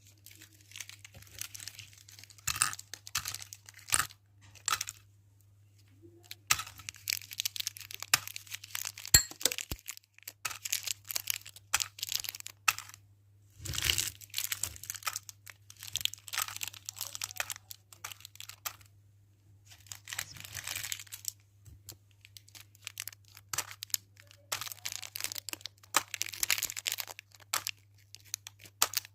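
Plastic candy wrappers crinkling and tearing as they are handled and opened. The crackling comes in irregular spells with short pauses between them, over a faint steady low hum.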